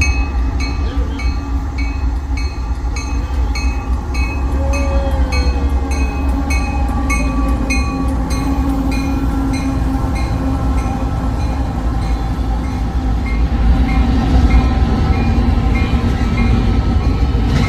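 Freight train locomotives rumbling past. A railroad crossing bell dings steadily about two to three times a second over the rumble, growing fainter in the second half.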